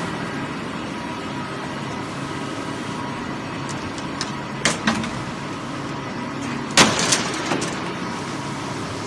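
HDPE/PP thick-board extrusion line running: a steady machinery hum with a few faint whining tones through it. Two sharp knocks come about halfway through, and a louder run of three or four knocks follows a couple of seconds later.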